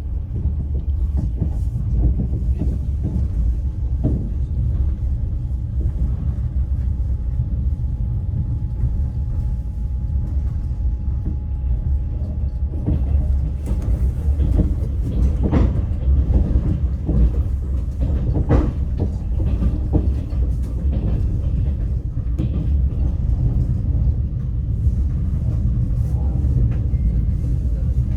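Passenger train carriage rolling along the track, heard from inside: a steady low rumble of the wheels on the rails with scattered knocks from the wheels over rail joints, two of them standing out about halfway through.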